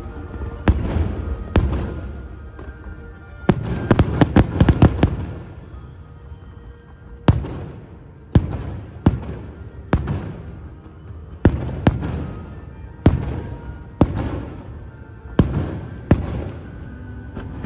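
Aerial firework shells, horsetails and brocades among them, bursting with sharp bangs that each trail off in echo. There is a rapid salvo of bangs about four seconds in, then single bangs roughly once a second, with music playing underneath.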